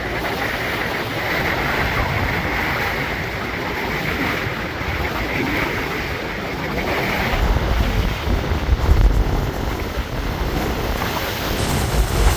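Strong wind buffeting the microphone and choppy water splashing around a small river boat under way, with heavier low gusts from about halfway through.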